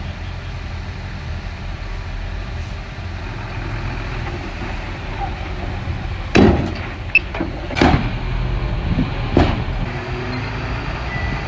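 Komatsu bulldozer running with a steady low engine rumble, with a few sharp clanks a little past halfway through.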